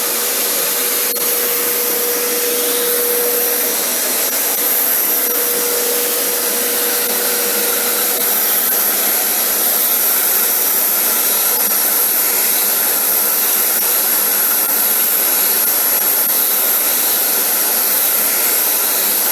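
Vacuum cleaner running steadily, a continuous airy rush with a thin high whine on top.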